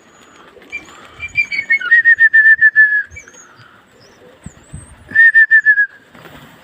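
Loud trilled whistling in two runs of quick, slightly falling notes: a longer one starting about a second in and a shorter one about five seconds in. Faint high bird chirps between.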